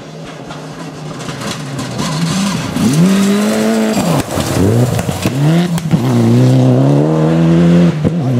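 Mitsubishi Lancer Evolution rally car's engine at full effort on a gravel stage, growing louder as it approaches and passes. The revs climb, drop sharply and climb again several times, with a hiss of gravel spray over the engine.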